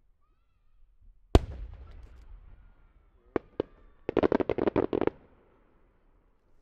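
Aerial firework shell bursting with one sharp, loud bang followed by a rumbling echo. Two single cracks about a quarter second apart follow, then about a second of rapid crackling pops from the smaller secondary bursts.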